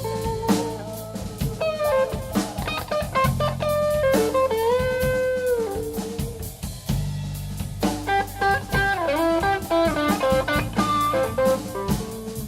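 Live rock band playing an instrumental passage: an electric guitar plays a lead line with bent, gliding notes over drum kit and bass.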